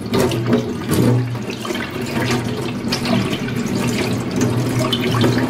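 Tap water running steadily over a prickly pear cactus pad and splashing into a stainless steel sink, with a low hum underneath.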